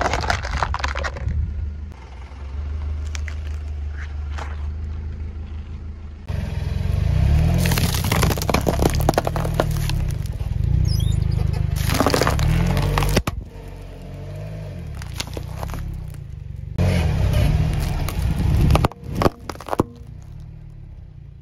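A car tyre rolling over and crushing a plastic cup and a pile of Chupa Chups hard-candy lollipops, the candy and plastic cracking and crunching in several separate stretches over a steady low rumble.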